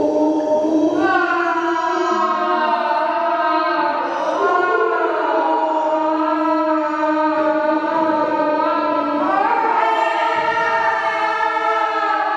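Slow vocal music: voices holding long notes, moving to new pitches a few times.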